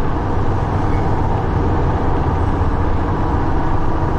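Steady low rumble of a moving road vehicle, with no change through the pause.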